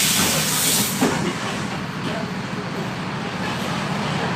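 A loud compressed-air hiss from the Mercedes-Benz OF-1721 Bluetec 5 bus cuts off sharply about a second in, leaving its diesel engine running steadily with a low rumble.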